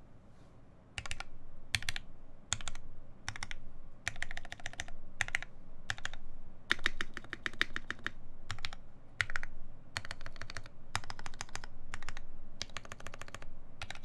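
Mechanical keyboard with lubed Mauve linear switches in a full aluminum plate, under GMK doubleshot ABS keycaps, being pressed with one hand. Starting about a second in, single keystrokes come first, then short quick runs of keys with brief pauses between them.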